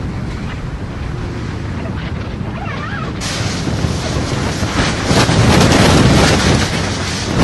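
Tornado-force wind rushing and buffeting the microphone in a loud, steady roar of noise. About three seconds in it turns harsher and fuller, and it swells to its loudest in the second half.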